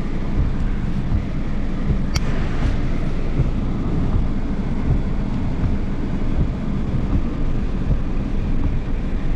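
Wind buffeting the microphone: a loud, uneven low rumble, with a single sharp click about two seconds in.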